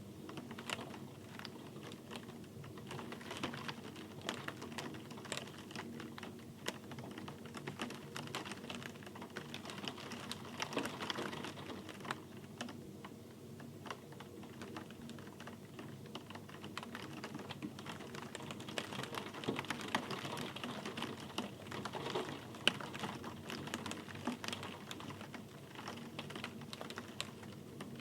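Steady rain, with many close drops ticking and pattering irregularly over a soft hiss.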